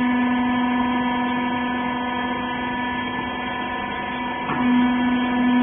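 Hydraulic baler's power unit, electric motor and pump, running with a steady hum. About four and a half seconds in, the tone briefly wavers and the sound grows a little louder.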